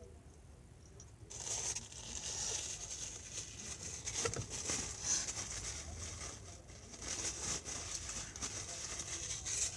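Close-miked eating noises: crinkling and small clicks as a donut is chewed and handled, starting about a second in.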